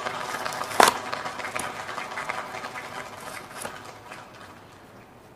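Clear plastic blister being peeled and torn away from a cardboard blister card, a crinkling crackle with one loud sharp crack just under a second in, dying away over the last second or so.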